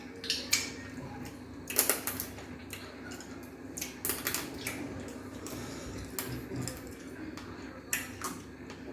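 Irregular clinks and clicks of dishes and cutlery during a meal of fufu and soup, some in quick clusters, over a low steady hum.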